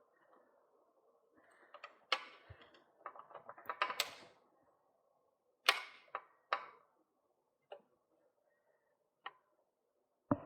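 Small metal bike parts and tools being handled at a workbench: a quick run of rattling clicks, then a few separate sharp clicks and knocks, the last one loudest.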